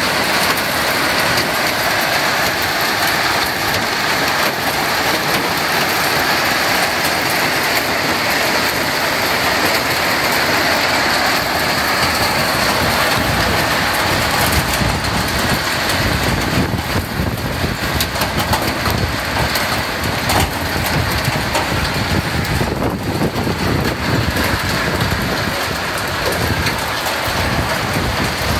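Small hail mixed with rain falling steadily on wet pavement and parked pickup trucks, a dense hiss with fine ticking. A deeper rumble joins in about halfway through.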